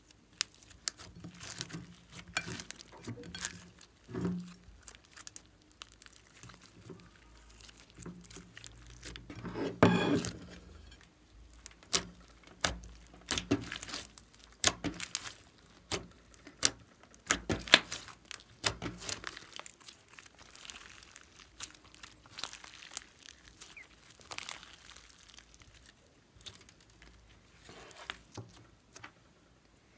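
Glossy slime mixed with blue glitter being kneaded, stretched and folded by hand: irregular sticky clicks and pops, with a longer squish about ten seconds in.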